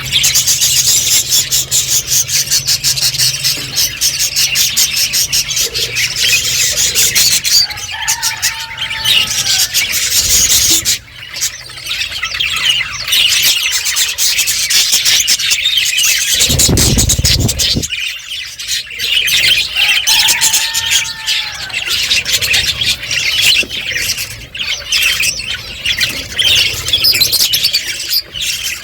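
Budgerigars chattering and chirping without pause, many high, rapid calls overlapping. A brief low rumble comes about two-thirds of the way through.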